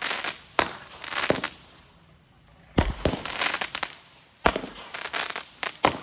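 Consumer fireworks going off. Sharp bangs come roughly every second or two, each followed by a spray of crackling, with a brief lull about two seconds in.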